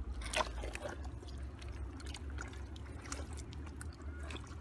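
Shallow water splashing and trickling as hands grope in the water for fish, with scattered small clicks and splashes, the largest about half a second in.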